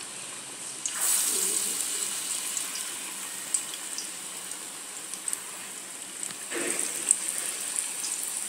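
Gram-flour-battered potato patties deep-frying in hot oil in an iron kadhai: a steady sizzle with scattered crackling pops. It swells louder about a second in, then settles.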